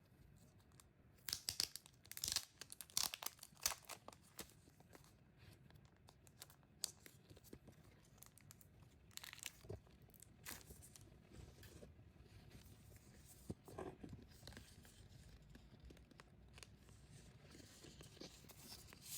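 Faint tearing and crinkling of packaging being opened by hand, in short bursts of rustling: a cluster in the first few seconds, another about ten seconds in, and a brief one near fourteen seconds.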